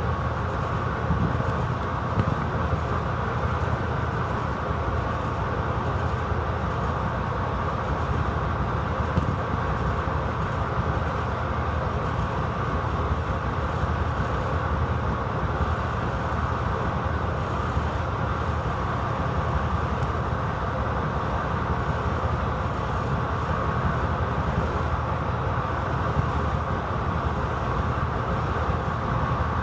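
6Dg diesel shunting locomotive running steadily as it moves slowly through the yard, with a low engine drone and a thin, steady high whine.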